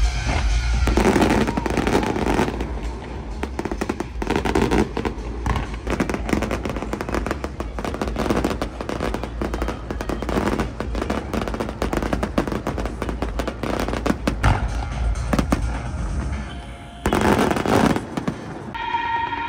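Fireworks going off in rapid succession: dense crackling and bangs, with a louder burst near the end.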